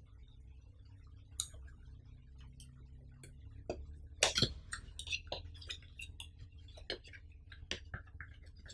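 Small white paperboard retail box of a Xiaomi power bank being worked open by hand: irregular light clicks and taps of card flaps and edges under the fingers, busiest about four to five seconds in.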